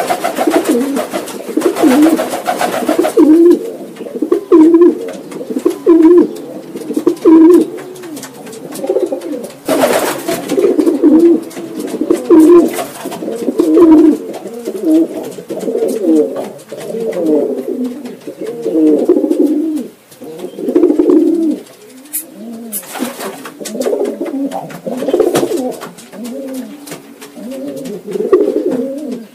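Domestic pigeons cooing close by, one low, rolling coo after another, about one a second, with a puffed-up bird among them displaying.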